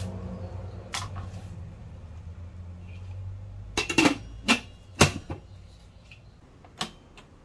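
Stainless-steel lid set onto the metal inner pot of an electric cooker, giving a few sharp metallic clanks and knocks, the loudest about five seconds in. A steady low hum runs underneath and fades about halfway through.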